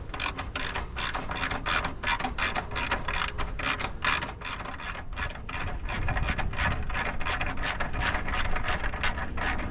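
Socket ratchet wrench clicking steadily, about three to four clicks a second, as it backs out the 12 mm bolt that holds a car horn, turned on an extension.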